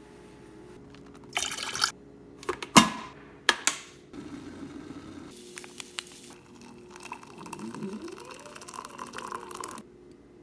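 A few sharp knocks and clatters, then hot water poured into a ceramic mug of instant coffee, the pitch rising as the mug fills, stopping abruptly near the end.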